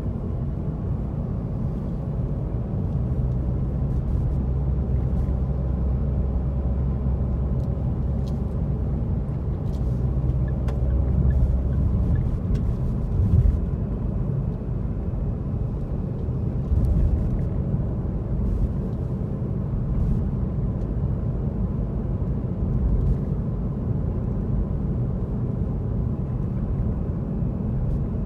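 Car cabin noise while driving: a steady low rumble of engine and road noise heard from inside the car, with a hum that shifts about halfway through and a few faint clicks.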